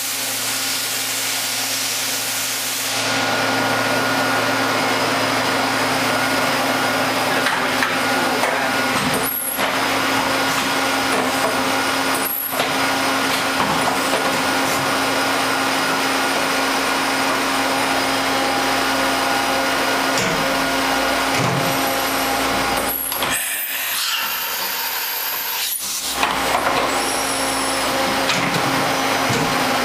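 Niigata HN100B horizontal machining center running: a steady hiss over a low hum, getting louder about three seconds in.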